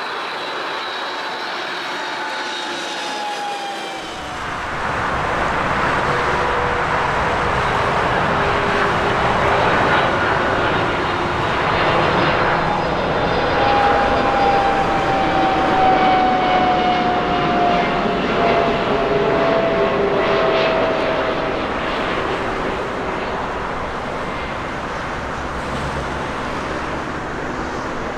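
Airbus CC-150 Polaris (A310) twin-jet on landing approach: loud jet engine roar with high whining tones that slide down in pitch as it goes by. The roar rises sharply about four seconds in and eases off in the last few seconds.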